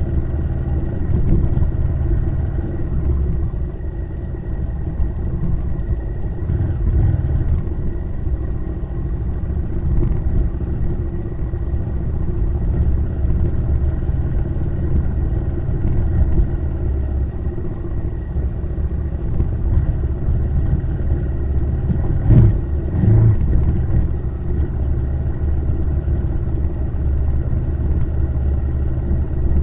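Vehicle on the move: a steady engine hum under low road and wind rumble, with two brief louder thumps a little over two-thirds of the way through.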